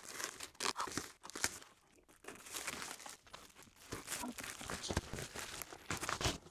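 Packaging being torn and crinkled as a mail parcel is opened by hand, in irregular crackling bursts.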